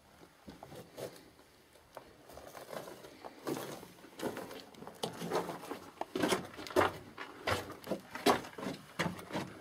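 Footsteps crunching over a rocky, debris-strewn mine tunnel floor, in an irregular walking rhythm that grows louder and closer-spaced from about three seconds in.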